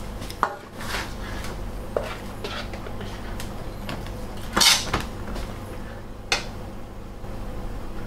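A ladle knocking and scraping in a stainless steel frying pan as thickened sauce is stirred: a few short sharp clacks, the loudest at about the middle, over a low steady hum.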